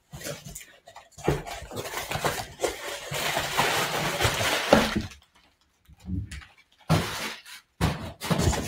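Cardboard shipping box being opened by hand: flaps and cardboard scraping and rustling, with knocks and rough tearing. It goes briefly silent about five seconds in, then more knocks and rustling follow.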